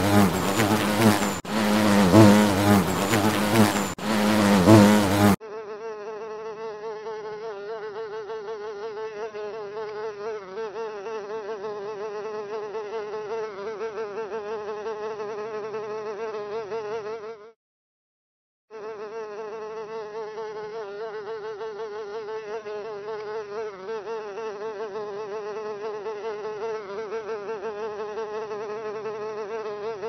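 Insect buzzing sound effects. For the first five seconds or so a loud, low, pulsing bee buzz plays, then it changes to a higher, steady, wavering housefly buzz. The fly buzz cuts out for about a second midway and then starts again.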